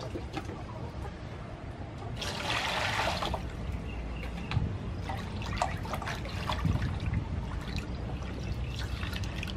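Water poured from a scoop, a rush lasting about a second starting about two seconds in, followed by splashing and sloshing as hands wash squid in water in a large aluminium bowl.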